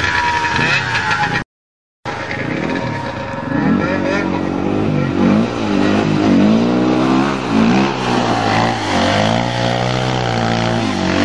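A vehicle engine revving up and down again and again as it is driven on ice, with a brief cut to silence about a second and a half in.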